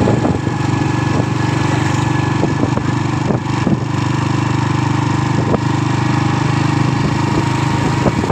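An engine running steadily at idle, with a few scattered knocks over it.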